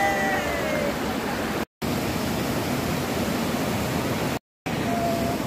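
Steady rush of creek water and a waterfall tumbling over rocks. It is broken twice by a brief moment of silence, and a faint short tone is heard near the start.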